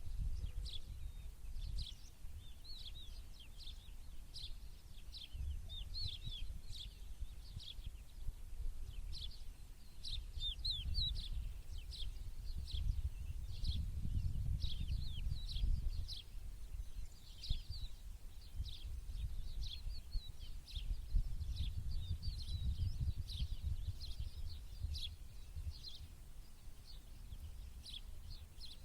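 Small birds chirping and twittering, many short quick notes throughout, over a low rumble that swells and fades.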